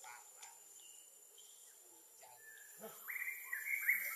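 Insects calling in the trees: a high, rapidly pulsing buzz starts about three seconds in and becomes the loudest sound. A thin, steady high whine runs underneath.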